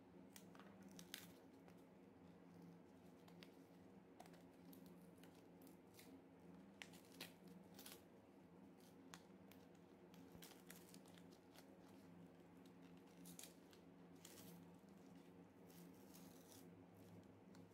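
Faint snips and the tearing and crinkling of a retail blister pack's cardboard backing as it is cut with scissors and peeled open, heard as scattered irregular clicks and rustles over a steady low hum.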